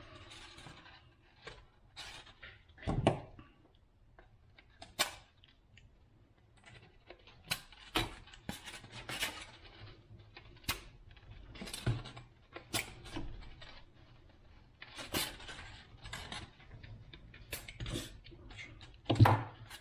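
Irregular clicks, taps and light knocks of hands working with corrugated plastic (Coroplast) fuselage parts and pins, with a louder knock about three seconds in and another near the end.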